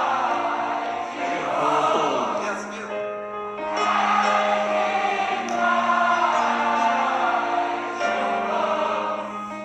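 Music: slow song with voices singing together in a choir-like way over held chords.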